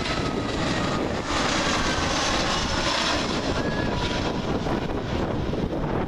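Jet engines of an Airbus A320-family airliner landing: a steady rushing engine noise with faint whining tones that drift slightly down in pitch.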